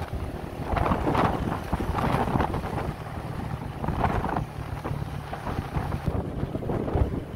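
Wind buffeting the microphone of a moving motorbike in gusts, over the motorbike's engine running at a steady low drone.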